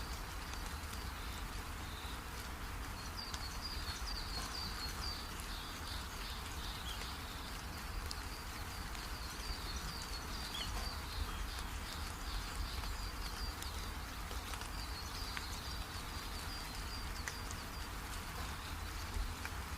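Outdoor ambience: strings of rapid, high-pitched chirps from small birds or insects over a steady low rumble and hiss.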